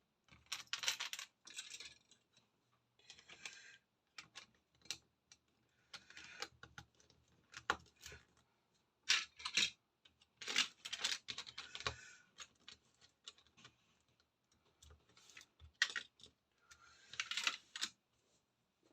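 Small plastic Lego pieces clattering and clicking in short, irregular bursts as they are handled and sorted.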